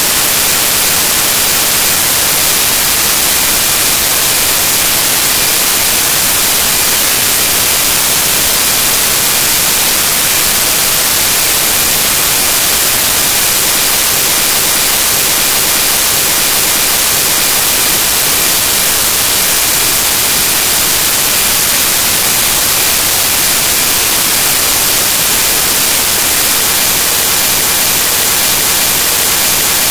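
Loud, steady static hiss with no change and no tones or voices in it: digital noise from a corrupted stretch of the file.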